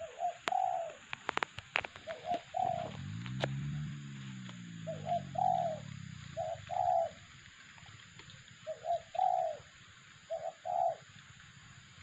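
Spotted doves cooing in short two-note phrases, six times over, with a few sharp clicks in the first couple of seconds. A low hum rises and falls in pitch in the middle.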